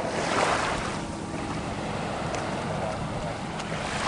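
Ocean surf washing onto the beach in a steady swell and ebb, with wind buffeting the microphone.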